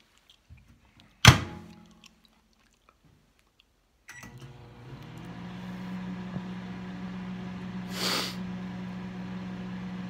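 A sharp thunk about a second in. About four seconds in, a steady low electrical hum of a running appliance or motor starts and keeps going, with a short rush of hiss about eight seconds in.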